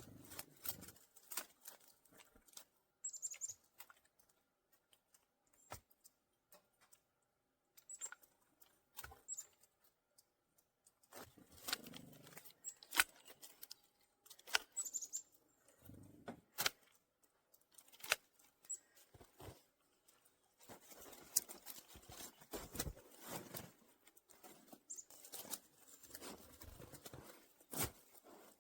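Irregular crunching and snapping of snow and small twigs, in loose clusters, with several brief, very high, thin calls of small winter birds scattered through.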